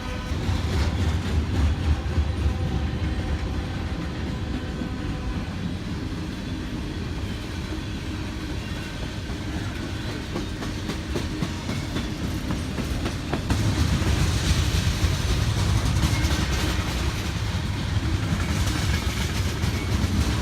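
A train rolling past close by: a heavy rumble with wheels clattering over the rail joints. It swells about a second in, eases through the middle, and swells again about two-thirds of the way through.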